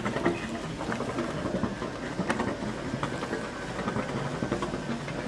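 Boat engine idling steadily, with a few faint knocks and clicks.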